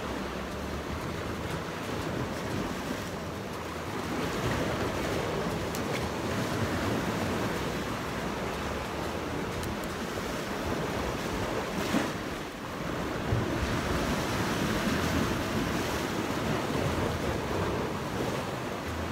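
Sea waves washing against rocks at the shoreline, with wind buffeting the microphone.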